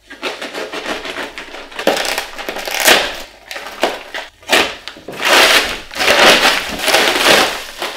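A padded paper mailer being cut open with a knife and torn apart by hand: crinkling and ripping paper in a run of uneven bursts, loudest in the second half.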